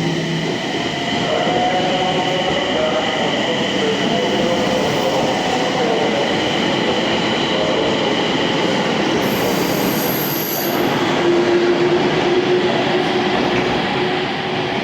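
E721-series and 701-series electric train pulling out of a station: a steady run of motor whine and wheel-on-rail noise with slowly shifting tones. A brief, very high wheel squeal comes about ten seconds in.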